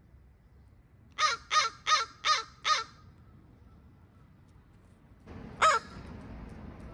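Crow cawing: a quick run of five harsh caws, then one more caw about three seconds later.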